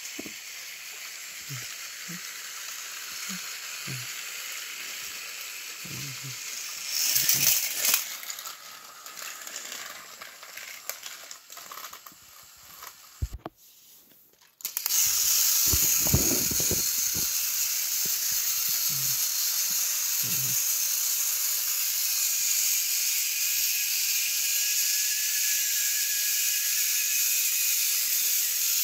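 Motorized Thomas & Friends toy train engines running on plastic track, a steady hissing whir with soft knocks. Midway the sound drops out for about a second, then a few knocks as engines are set on the track, and the whir comes back louder.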